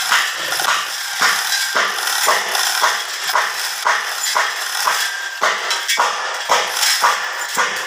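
Manual chain hoist worked by its hand chain, lifting a differential carrier: the chain rattles and clinks through the hoist in a steady rhythm, about twice a second.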